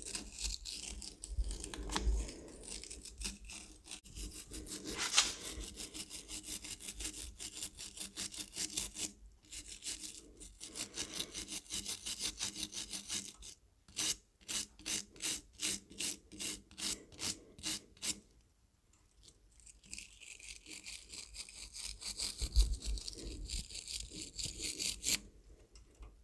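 Metal-on-metal scraping as a cleaning tool scrubs rust and corrosion from the inside of a tractor's battery cable terminal, in quick repeated strokes of about three a second, with a short pause about 18 seconds in. The connection is being cleaned so the battery can make good contact and take a charge.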